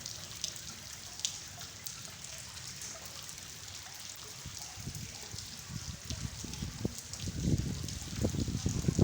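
Rain falling on a hard floor: a steady patter with many small, sharp drop impacts. Heavier low thumps come in during the second half and grow stronger near the end.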